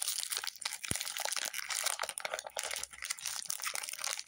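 Foil wrapper of a Pokémon trading-card booster pack crinkling and crackling as it is torn open by hand and the cards are pulled out.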